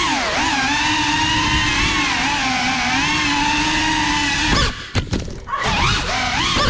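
GEPRC CineLog35 cinewhoop drone's motors and ducted propellers whining, the pitch wavering as the throttle moves. About four and a half seconds in there are a couple of knocks and the motor sound drops away for about a second, then it picks up again.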